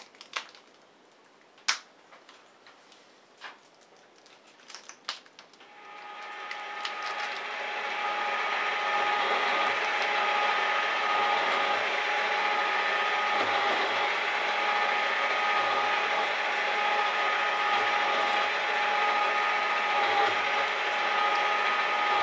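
A few sharp clicks, then about six seconds in a metal shaper starts up and runs steadily with a whine, its ram stroking back and forth with a low thump about every two seconds as the tool cuts steel.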